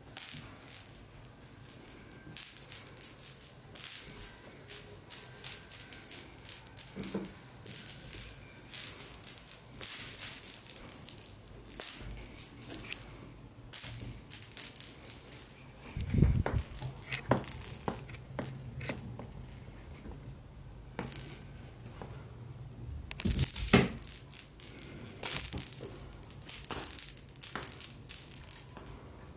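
Small plastic cat-toy ball with a rattle inside, jiggled on a string, rattling in short irregular bursts. A couple of dull thumps come in about halfway through and again near the end.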